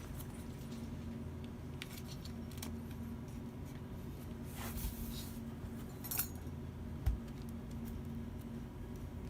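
Light clicks and a rustle of small parts being handled during laptop work, with a sharper click about six seconds in and a dull thump just after, over a steady low hum.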